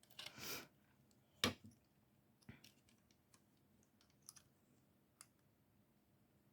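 Sparse small clicks and taps of plastic clock/FM radio kit case parts being handled and fitted, the loudest about a second and a half in, after a short soft hiss at the start.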